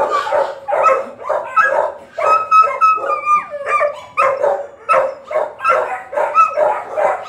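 Dogs barking over and over, about two barks a second, with one long drawn-out howl about two seconds in that drops in pitch as it ends.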